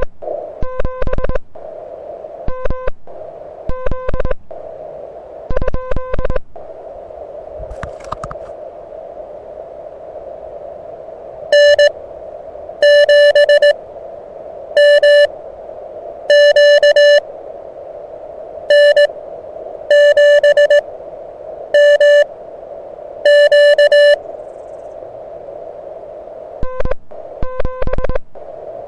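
Morse code tones from a portable QRP HF transceiver, keyed on and off over a steady band of receiver hiss. A lower-pitched signal sends short groups during the first several seconds and again near the end, and a louder, slightly higher-pitched signal sends longer characters from about twelve to twenty-four seconds in.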